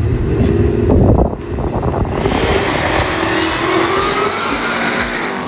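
Drag car engine running hard and accelerating: a low rumble that is loudest about a second in, then from about two seconds in a wide rushing sound with a slowly rising whine, easing off near the end.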